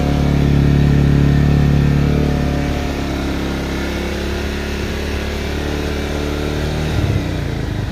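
Bajaj Pulsar motorcycle's single-cylinder engine running near idle, a little louder for the first two seconds and then settling to a steady run.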